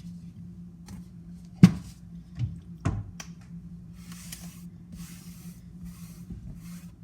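Kitchen utensils against a mixing bowl while making banana bread batter: a few sharp knocks, the loudest about one and a half seconds in. They are followed by a soft, repeated scraping hiss from about four seconds in.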